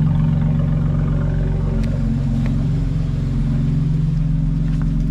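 BMW X3 M's twin-turbo inline-six idling steadily through the exhaust, with the exhaust valves switched open by an aftermarket valve controller.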